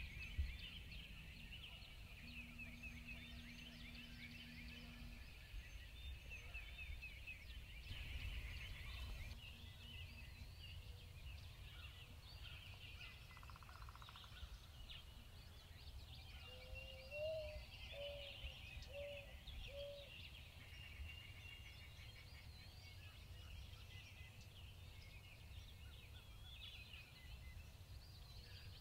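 Faint songbird chorus of many overlapping chirps and trills. About halfway through, a wild turkey hen gives a short series of about five low yelps.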